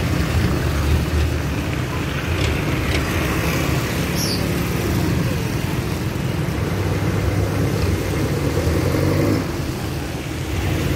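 Street traffic on a wet road: motorcycle and car engines passing, their pitch rising and falling, over steady traffic noise.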